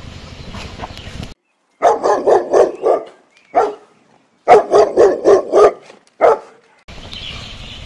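Dog barking in two quick runs of about five barks each, each run followed by one more single bark, dropped in as a sound effect with the background cut to silence around it.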